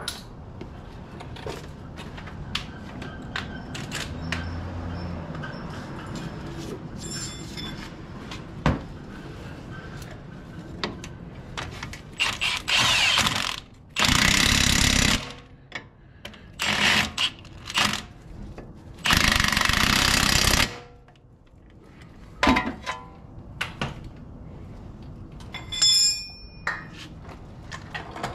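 Impact wrench hammering in several bursts of one to two seconds, about halfway through, tightening the bolts that hold the strut to the steering knuckle. Before and after the bursts, scattered clicks and knocks of tools being handled.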